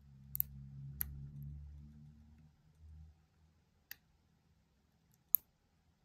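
Sharp metallic clicks of a hook pick and tension wire working the pins of Harry Bow's Chicane challenge lock. Four clicks are spread out, the loudest about five seconds in, with a faint low hum under the first couple of seconds.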